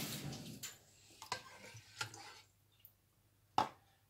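Brine poured from a ladle into a glass jar of shredded red cabbage, the pouring fading out within the first second. A few short clicks and knocks of the ladle against the jar and pot follow, the sharpest near the end.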